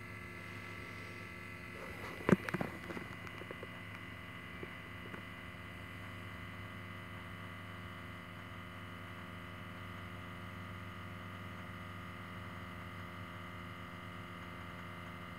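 Steady pump-like electric hum from underneath a parked, switched-off 2014 Toyota Sienna, several fixed tones held level throughout. A single sharp knock a little over two seconds in, followed by a few light rattles.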